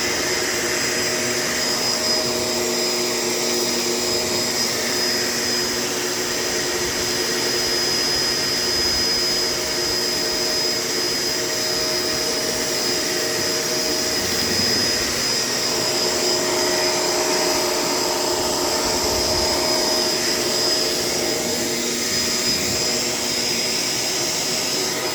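Vacuum cleaner running steadily, with a steady high-pitched motor whine over a lower hum.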